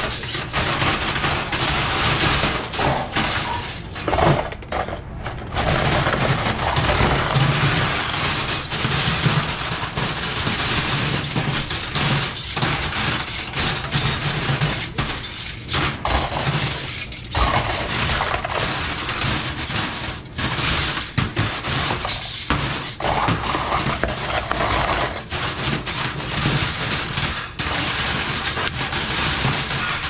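Stainless steel cutlery (forks, spoons and knives) clinking and clattering without a break as it is sorted by hand from a pile on a steel counter and dropped into a cutlery rack. A steady low hum runs underneath.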